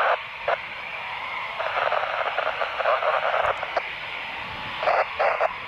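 Air-band radio transmissions heard through a scanner: short bursts of thin, narrow-band voice, unintelligible, over a steady hiss.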